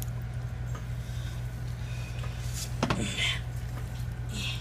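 Soft wet squishing and rustling of canned mixed vegetables and rice as gloved hands push them into the armadillo's body cavity, in short bursts over a steady low hum. A brief vocal sound comes near the middle.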